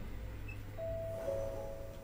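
Two-note electronic chime inside a Sapporo streetcar M100-class tram: a higher note sounds about a second in and a slightly lower note joins it, both held, over a low steady hum from the car. It is the chime that leads into the automated next-stop announcement.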